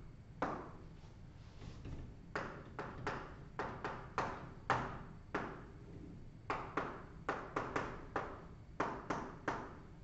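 Chalk tapping and scraping on a chalkboard while words are written: a quick, irregular series of sharp taps.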